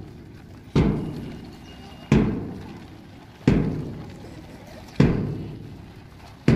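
Deep drum beats, slow and regular, one about every second and a half, each ringing out before the next: a steady beat for a fan drill.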